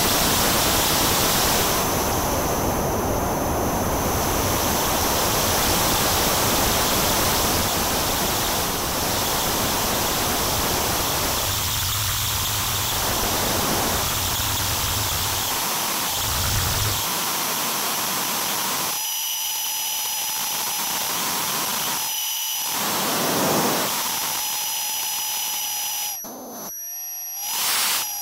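Synthesized noise from a VCV Rack software modular synth: a steady, loud hiss whose tone changes several times. From about two-thirds of the way through, thin steady whistling tones sit in the hiss, and it dips briefly near the end.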